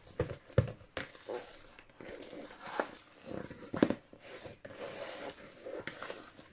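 Hands kneading risen yeast dough in a clear bowl: soft squishing and pressing of the dough, with a few short sharp knocks and slaps. The dough has doubled in size and is being knocked back.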